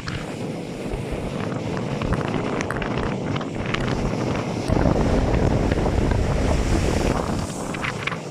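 Strong wind buffeting the microphone over rough sea surf, with a harder gust about halfway through.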